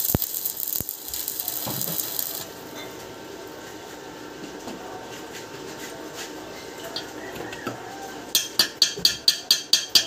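Stick arc welder crackling and sizzling for about two and a half seconds as a weld is laid on a steel car door hinge. About eight seconds in, a metal tool starts tapping sharply on the hinge, about four strikes a second, chipping the slag off the fresh weld.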